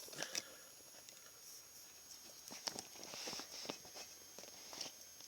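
Faint scattered clicks, taps and light rustling, typical of small objects being handled close to the microphone, over a steady faint high-pitched whine.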